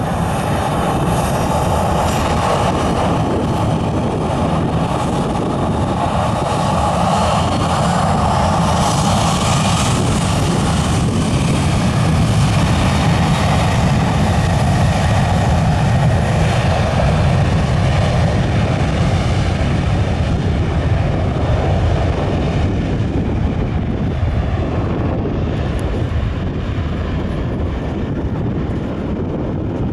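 Twin jet engines of a WestJet Boeing 737 at takeoff thrust, a loud steady roar. The higher part of the roar is strongest in the first ten seconds and a deep rumble takes over in the middle, then the sound fades over the last several seconds as the airliner rolls away down the runway.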